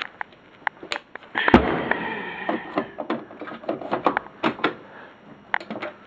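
Clicks and knocks of hands working a water supply tap and the dishwasher's controls, with a louder burst about a second and a half in that fades over about a second.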